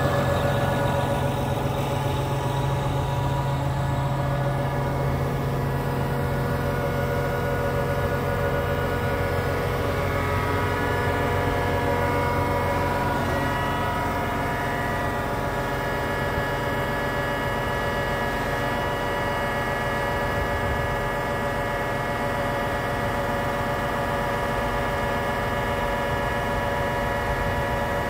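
John Deere 8R 370 tractor's diesel engine idling steadily, a hum made of several held tones with a higher whine over it; the lowest part of the hum eases off about halfway through.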